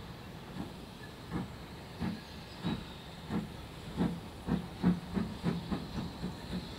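GWR Manor-class steam locomotive No. 7820 Dinmore Manor starting away, its exhaust chuffs coming faster and louder, from about one every two-thirds of a second to about three a second, over a steady hiss.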